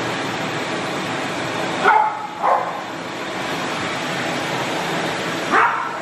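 Long-haired Jack Russell terrier barking three times at a vacuum cleaner: two sharp barks close together about two seconds in and one more near the end. Under the barks, the vacuum's motor gives a steady drone.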